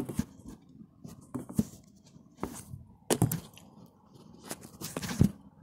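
Handling noise: irregular knocks and rustles as the phone and objects on a table are moved about, the loudest knock near the end.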